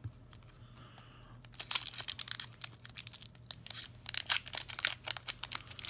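A Pokémon trading-card booster pack's foil wrapper being torn open and crinkled, a fast run of crackles starting about a second and a half in.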